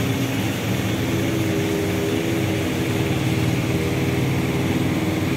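Diesel engines of parked fire engines running steadily, a continuous low drone.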